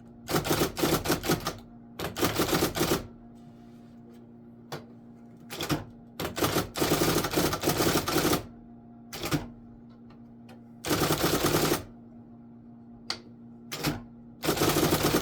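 IBM Correcting Selectric II electric typewriter typing in bursts of rapid keystrokes, from single strikes to runs of a second or more with pauses between, over the steady hum of its running motor.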